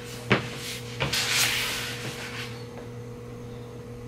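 Sneakers handled on a tabletop: a sharp knock, then a second knock about a second in followed by about a second of rustling as the shoes are picked up together. A low steady electrical hum runs underneath.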